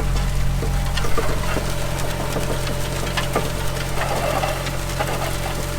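Tractor engine running steadily under load while towing a set of cultivator discs across a field, with scattered clicks and knocks throughout.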